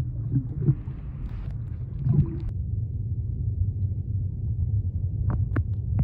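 Muffled underwater rumble of moving water, heard by a submerged microphone in a river pool, with a few brief squeaks in the first couple of seconds and two sharp clicks near the end.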